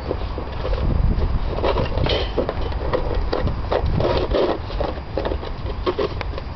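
Bernese mountain dog puppies eating and jostling at a plastic food bowl on paving stones: irregular scrapes, clicks and rubbing as the bowl is pushed about, over a steady low rumble.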